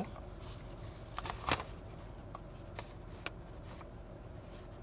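Sandwich wrappers being handled: a few soft, scattered clicks and rustles over a low steady background, the sharpest about a second and a half in.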